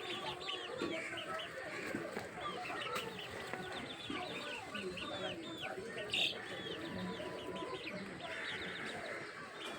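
Chickens clucking and many birds chirping in a dense chorus of short, high calls, several a second. One louder call stands out about six seconds in.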